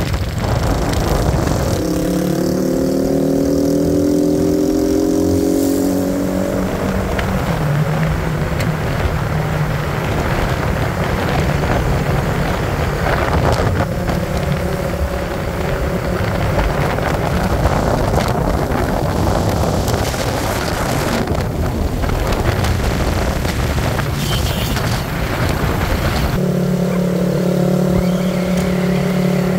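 A motor vehicle's engine running with wind rushing past. The engine hum rises slightly in pitch for a few seconds near the start, then sinks into the wind noise, and comes back as a steady hum near the end.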